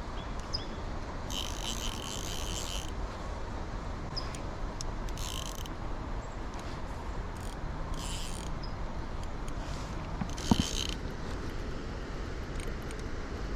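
Fly reel's click-and-pawl drag buzzing in four short spurts, the first about a second and a half long, while a hooked carp is being played, over a steady background hiss. A single sharp knock comes about ten seconds in.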